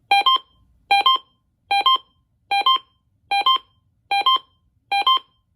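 Uniden BC370CRS scanner's alert beeping: a short two-note beep, a lower note then a higher one, repeated seven times at an even pace of a little more than one a second. It is the alarm the radio sounds on receiving a weather advisory alert.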